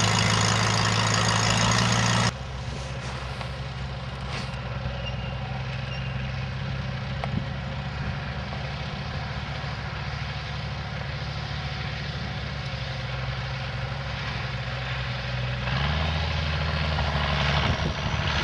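Farm tractor engine running steadily under plowing load. It drops abruptly about two seconds in and grows louder again near the end.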